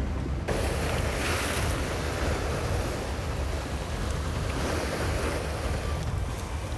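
Sea waves breaking and washing on the shore, with wind rumbling on the microphone; the surf comes in suddenly about half a second in and swells again about a second in and near five seconds.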